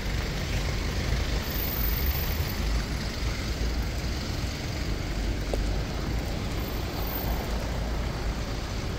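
Steady city street traffic noise from cars, a continuous hum with a low rumble underneath.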